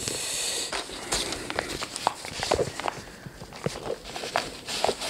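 Handling noise: irregular rustles and soft knocks as a sheet of grass mat is picked up and laid over a paper hill, mixed with a few footsteps on a wooden floor. A brief hiss of rustling in the first second.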